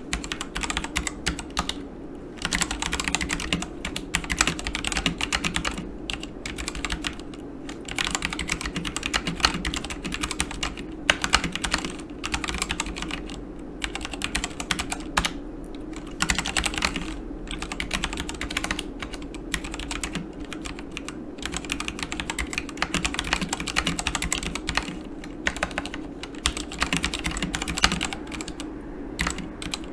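Typing on a Yunzii KC84 mechanical keyboard with Gateron Black switches: fast, continuous keystroke clicks and clacks in runs, with short pauses now and then.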